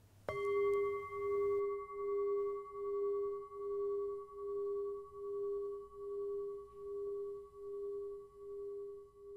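A singing bowl struck once, then ringing with a long, slowly fading tone that wavers in loudness about once a second.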